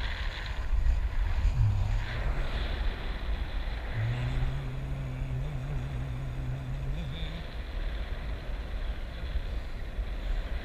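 Wind rushing over and buffeting a small camera microphone while parasailing high above the sea. A steady low hum joins in about four seconds in and lasts for a few seconds.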